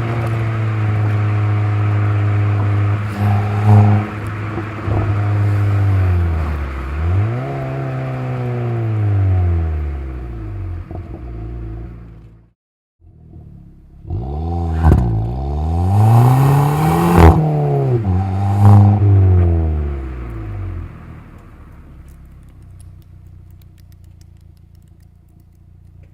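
VW Polo 6R 1.2 TSI turbocharged engine and its resonator-deleted exhaust with a GTI muffler, revving up and down several times with pops and crackles on the overrun. The sound cuts out briefly in the middle, and near the end it settles to a quieter steady engine note.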